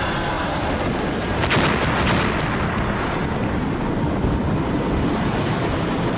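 Explosion sound effects for a volcanic eruption: a continuous heavy roar, with two sharper blasts about a second and a half and two seconds in.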